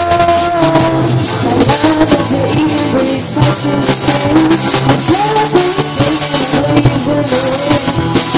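Live rock band playing, with a female lead vocal over electric and acoustic guitars and drums.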